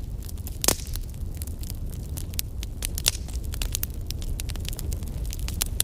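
Crackling fire from a fire sound track laid over the picture, not from the candle: irregular pops and snaps over a low steady rumble, with a louder crack just under a second in and another about three seconds in.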